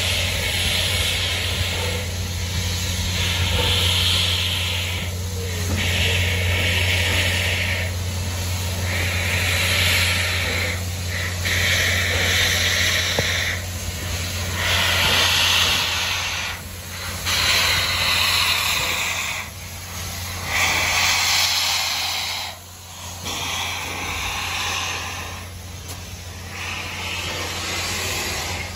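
Pere Marquette 1225, a Berkshire (2-8-4) steam locomotive, moving slowly: steam hissing in long repeated bursts with short breaks every two to three seconds, over a steady low hum.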